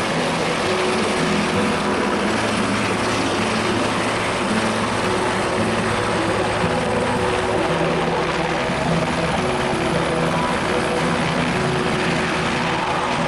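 Helicopter running, a steady loud rotor and engine noise with a low hum under it that holds level throughout.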